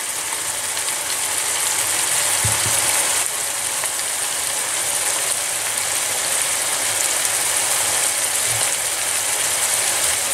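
Ground beef and onions frying in a pan with a dollop of tomato-pepper paste, sizzling steadily.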